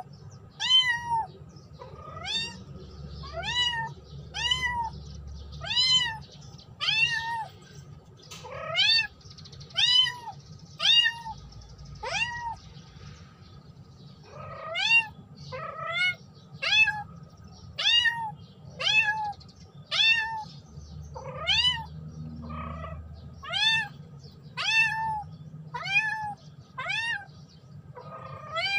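Ginger kitten meowing over and over, about one high, rising-and-falling meow a second, with a short pause near the middle: a lone kitten calling for its companions.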